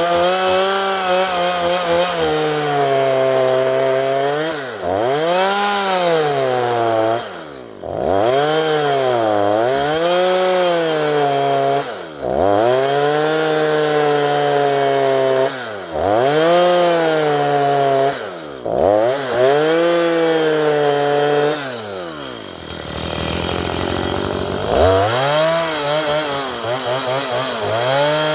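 Stihl MS 162 two-stroke chainsaw ripping lengthwise through a wooden fence post. The engine runs at a high whine and drops sharply in pitch before climbing back, over and over, about every three to four seconds, as it bogs in the cut or is let off and re-throttled. A longer low dip comes near the end.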